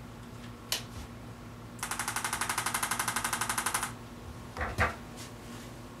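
Arthrostim chiropractic adjusting instrument firing a rapid, even train of taps, about ten a second, for about two seconds. A sharp click comes just before it and a couple of knocks come shortly after it.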